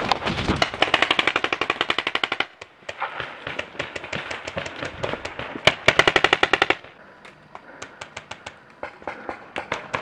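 Paintball markers firing rapid strings of pops, about ten shots a second: a long burst of about two seconds near the start and a shorter, loud burst about six seconds in, with scattered quieter shots between and after.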